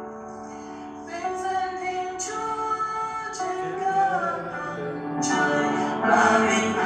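Church music: held keyboard chords, then singing over the keyboard accompaniment, starting about a second in and growing louder.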